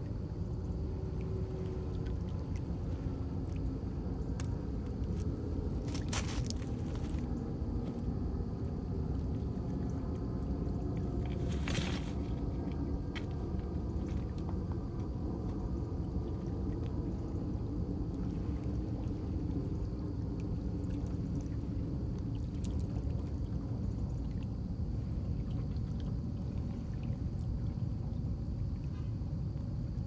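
Small lake waves lapping and gurgling against shoreline rocks over a steady low rumble of wind. Two brief sharper sounds come about six and twelve seconds in.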